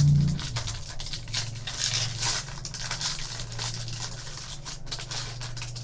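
Trading card pack being opened and handled: wrapper crinkling and tearing, with cards rustling, over a steady low hum.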